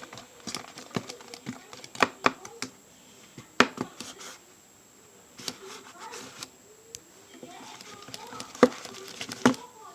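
A spoon knocking and scraping against a container while slime made from glue and borax water is stirred: irregular sharp clacks, the loudest about two, three and a half, eight and a half and nine and a half seconds in.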